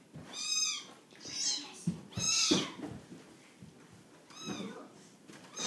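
Young kittens meowing: four short, high-pitched cries, the first three about a second apart and the last after a longer pause.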